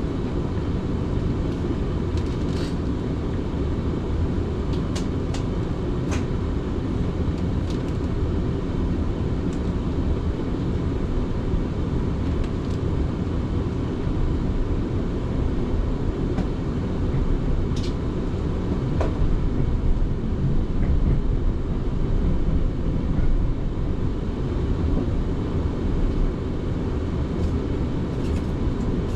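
Passenger train running along the track, heard from inside the carriage: a steady low rumble of wheels and running gear with scattered light clicks, growing a little louder about two-thirds of the way through.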